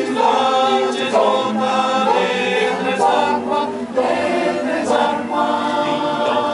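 A large mixed choir of men's and women's voices singing a cappella, holding long notes in phrases with brief breaks between them.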